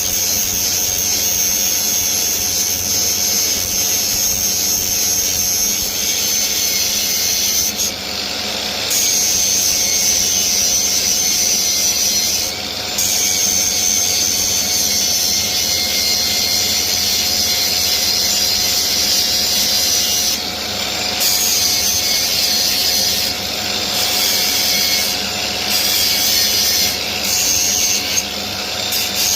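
Angle grinder abrading scrap wood: a steady motor whine under a loud high rasp, which drops out briefly several times as the disc comes off the wood while the motor keeps running.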